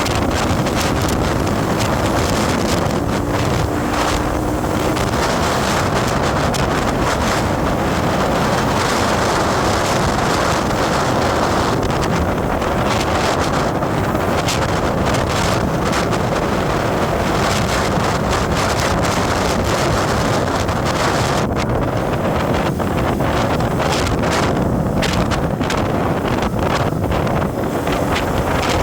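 Steady wind rushing over the microphone, with road and vehicle noise underneath, as from a moving vehicle on the road.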